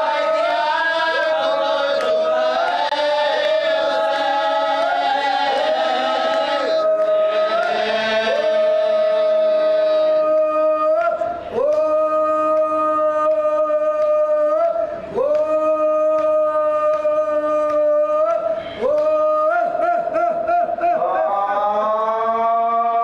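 Men chanting an Urdu marsiya (a mourning elegy) with no instruments: a lead reciter with other men joining in on long, slowly gliding held notes. After about ten seconds the voices thin to a few long notes, each broken by a short breath every three to four seconds.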